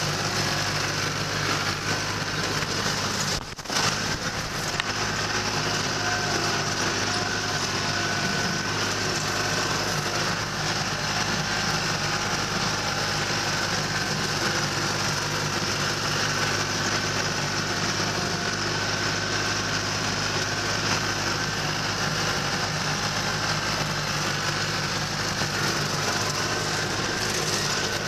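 Farm tractor engine running steadily while pulling a rotary mower through pasture grass, a constant engine hum with a short dip about three and a half seconds in.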